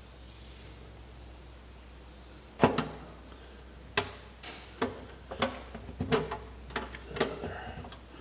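A quiet stretch, then about a dozen sharp knocks and clanks starting about two and a half seconds in, as a stamped steel valley pan gasket is handled and worked into place on the engine block.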